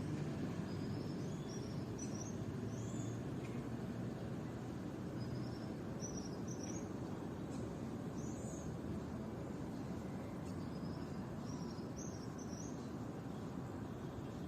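A small songbird singing short phrases of three or four quick, high, upturned chirps, repeated about four times, over a steady low background rumble.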